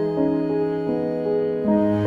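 Soft, slow background music: sustained piano or keyboard notes changing every half second or so, in a sad, tender mood.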